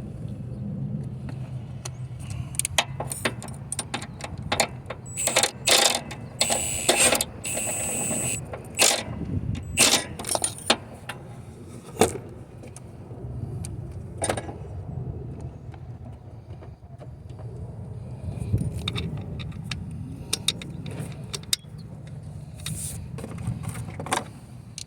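Metal tools and parts clinking and knocking in irregular bursts as an alternator and its bolts are worked back into place, with a short scraping rasp about seven seconds in, over a low steady hum.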